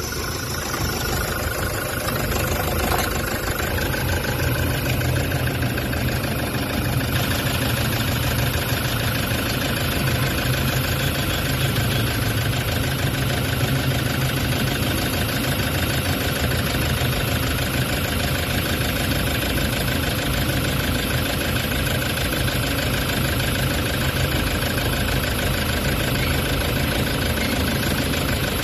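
Toyota Hi-Ace common-rail diesel engine idling steadily just after start-up. The mechanic traces the engine's vibration to a problem at the connecting-rod and main bearings, with the injectors firing normally.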